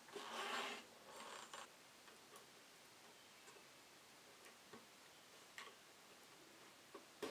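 Thread being drawn through leather in hand stitching: two soft rasping pulls in the first second and a half, then a few faint scattered ticks of the needles.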